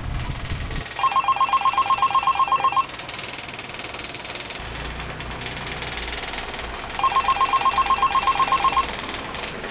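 Smartphone ringing with an incoming call, set to a classic telephone-bell style ringtone: two rings about six seconds apart, each about two seconds of rapid two-pitch trilling, roughly ten pulses a second.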